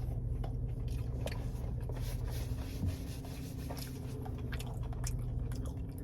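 A man chewing breaded, fried mozzarella cheese bites with small crunching clicks. A steady low hum runs underneath.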